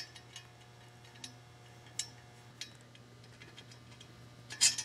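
Light metal clicks and taps, spaced a second or so apart, from bolts and self-locking nuts being handled against the steel tubes of a mowing sulky's U-frame, with a louder pair of clinks near the end. A low steady hum runs underneath.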